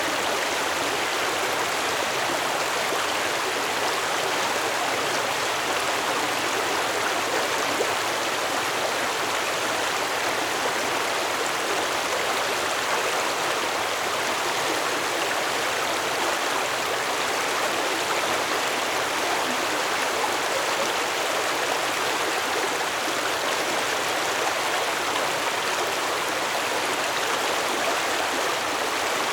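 Stream water flowing over rocks, a steady, even rush and gurgle.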